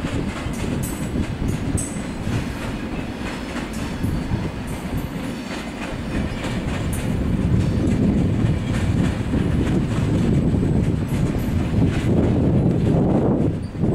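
SBB passenger coaches rolling past, wheels rumbling on the rails with repeated clicks and clacks over the rail joints and points. It grows louder about halfway through.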